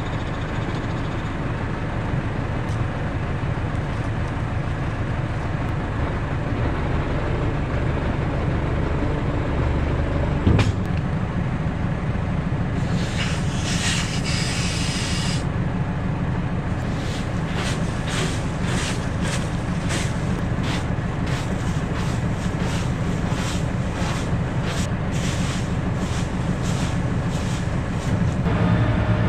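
Tractor engine running steadily at idle, with a single knock about ten seconds in, a few seconds of hissing soon after, and a run of sharp clicks in the second half.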